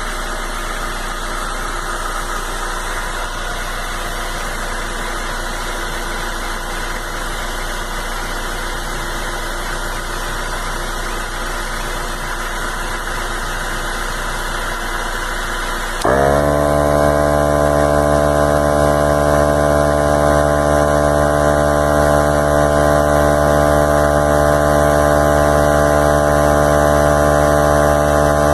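VIAIR 88P 12-volt portable tire inflator running steadily. About two-thirds of the way through, the sound jumps louder into a steadier, deeper hum.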